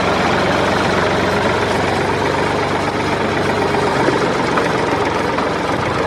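Steady engine-like running noise: an even hiss across the range over a low, unchanging hum.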